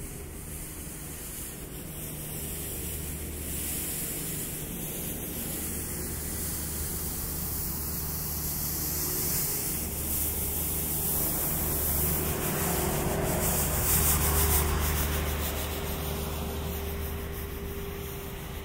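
Outdoor ambience: a steady hiss with a low hum underneath, swelling about two-thirds of the way through and easing again.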